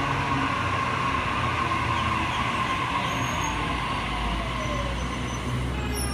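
Sydney Trains Waratah double-deck electric train slowing to a stop at the platform, its traction motor whine falling in pitch as it slows, over a steady hum and rumble.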